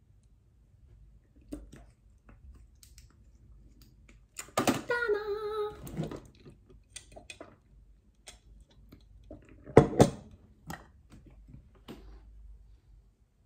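A woman humming briefly, one short wavering note, amid small scattered clicks of handling a lipstick and a glass. About ten seconds in come two sharp snaps in quick succession, the loudest sounds.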